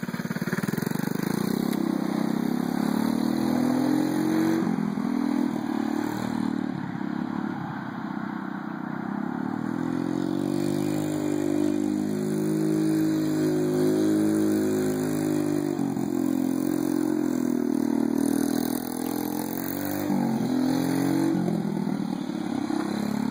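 Freshly rebuilt first-generation Honda QA50 minibike's small single-cylinder four-stroke engine running as it is ridden, its note rising and falling with the throttle.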